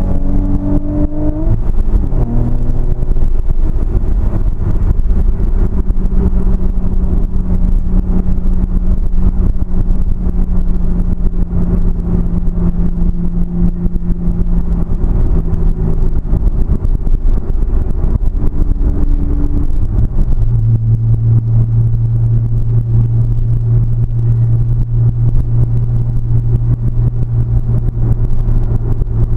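Car engine running while driving, over a heavy low rumble. Its note rises over the first couple of seconds, holds steady, then settles to a lower steady note about twenty seconds in.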